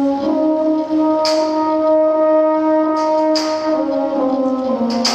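Dance music: slow, held chords in a horn-like tone that shift pitch partway through, punctuated by three sharp percussive hits, about a second in, past three seconds, and near the end.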